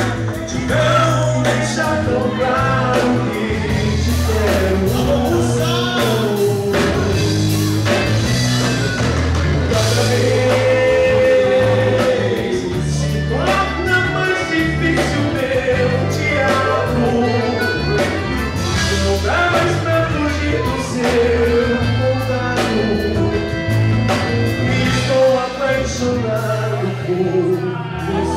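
Live band playing through a PA: a man singing over accordion, guitars and drums.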